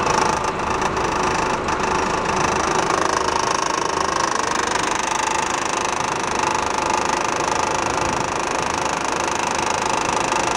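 Ford car's engine idling steadily.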